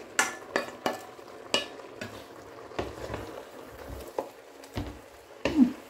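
A few sharp clinks of a small saucepan against a large stainless steel pot as the vegetable sauce is scraped in, then a wooden spoon stirring chunks of pumpkin and yam in the pot, with a few dull knocks.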